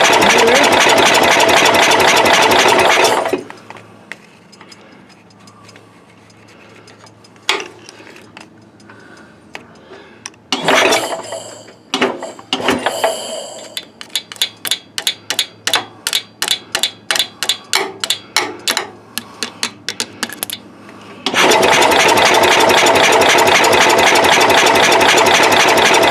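Cub Cadet 108's Kohler single-cylinder engine being cranked by its starter without catching: a loud steady cranking run for about three seconds, then again over the last five seconds. In between come a few clicks and short bursts and a run of quick regular ticks, about three a second. The engine is being cranked to check spark, which comes and goes; the owner blames worn ignition points.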